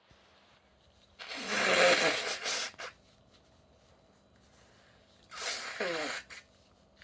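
A woman with a cold sneezing twice: a loud sneeze about a second in, then a shorter, softer one about five seconds in, each with a falling voiced sound.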